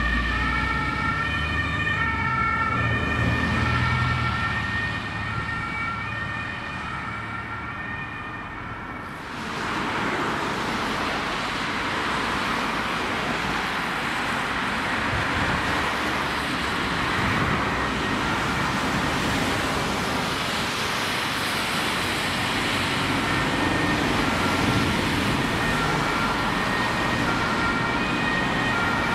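German two-tone ambulance siren sounding in its repeating high-low pattern as the ambulance drives off. About nine seconds in, it gives way abruptly to steady traffic noise and tyre hiss on a wet road. Near the end the two-tone siren comes back in as the ambulance approaches through the traffic.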